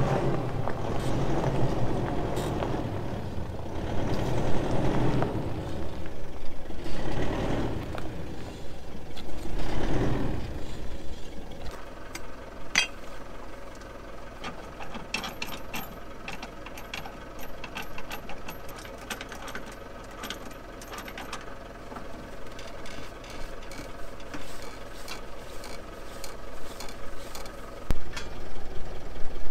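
A pickup towing a caravan rolls slowly over gravel for the first dozen seconds, with a louder, surging rumble. Then comes a quieter, steady engine hum while sharp metal clicks and knocks come from the tow hitch and jockey wheel as the caravan is uncoupled.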